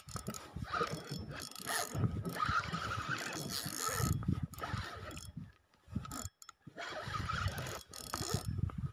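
Spinning fishing reel being cranked, a whirring ratcheting as line is wound in, in runs with short pauses about five and six seconds in.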